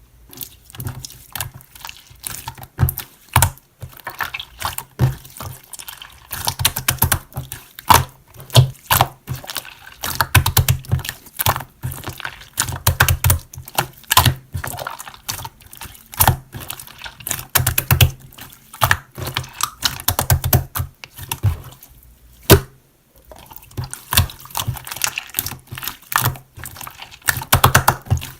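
Rapid, irregular sharp clicks and taps, dense throughout, with a short lull a little before the end.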